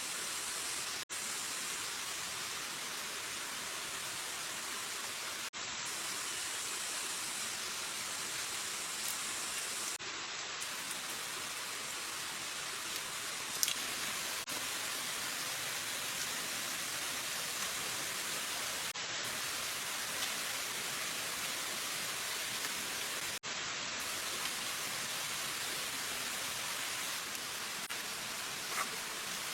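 Steady hiss of water, even and high-pitched. It cuts out for a moment several times.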